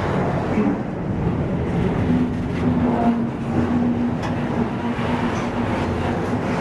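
Freight train rolling past with a loud, steady rumble. A steady hum joins in about two seconds in.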